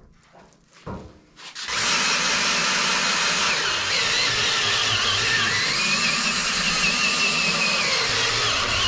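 Cordless drill turning a long auger bit into a log wall, boring a hole through the log. It runs steadily under load from about two seconds in, with a whine that wavers slightly in pitch.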